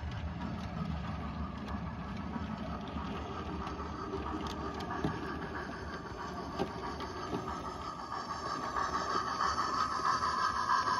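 Bachmann 00 gauge model train running on the track, a steady whir and rumble that grows louder over the last few seconds as the locomotive and coaches come out of the tunnel. A few light clicks sound along the way.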